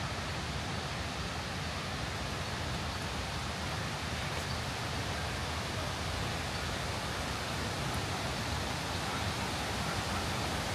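Steady rush of a waterfall, a constant even roar of falling water that grows slightly louder toward the end.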